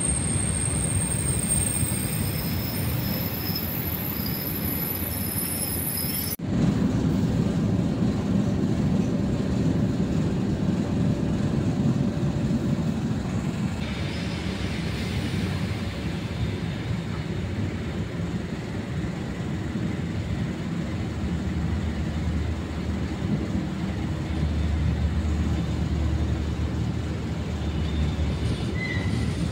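ER2K electric multiple unit running along the track, heard from inside the carriage: a steady rumble of wheels and running gear. During the first six seconds a thin high whine rides over it, then the sound changes abruptly to a fuller, lower rumble.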